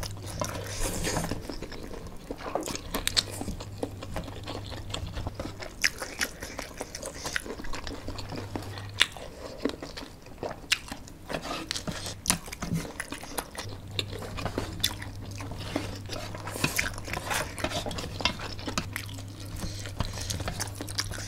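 Close-miked eating: people chewing and slurping spicy noodles, with many short wet mouth clicks and smacks throughout.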